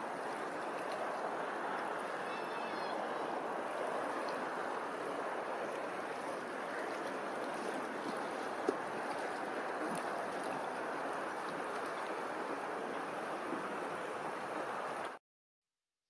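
Steady rush of open water and wind, with a faint bird call about two and a half seconds in; the sound cuts off suddenly about a second before the end.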